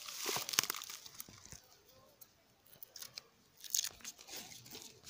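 Irregular rustling and crunching of handling noise, dry straw mulch and twigs being shifted by hands and feet during grafting work on a tree trunk. It is busiest in the first second and again a little before the end.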